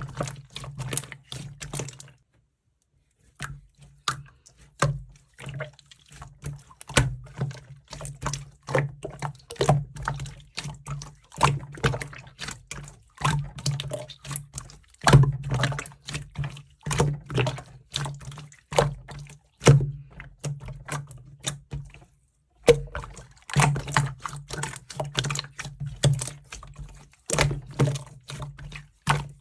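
Slime being squeezed, stretched and poked by hand, making dense wet clicks, pops and squelches. The sounds are broken by two short silences.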